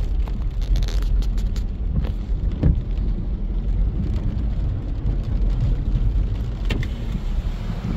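Heavy low rumble of a car heard from inside the cabin, its engine and road noise running steadily on a waterlogged road, with a few short sharp taps scattered through it.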